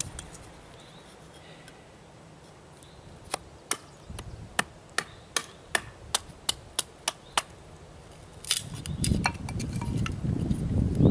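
Wooden baton knocking on the spine of a bushcraft knife, driving the blade down through a basswood stick to split it: about a dozen sharp knocks at two to three a second, starting a few seconds in, then a few more. A low rushing noise swells near the end.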